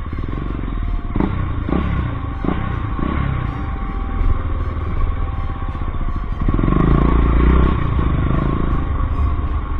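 Motorcycle engine running, with a few sharp knocks early on and a louder stretch a little past the middle, under background music.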